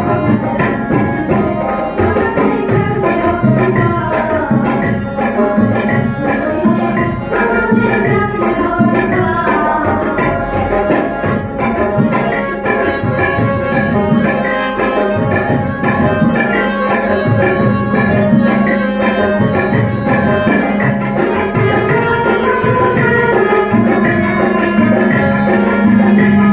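Bengali folk-song ensemble playing an instrumental passage: tabla driving a fast rhythm under harmonium and dotara, with a steady held tone throughout.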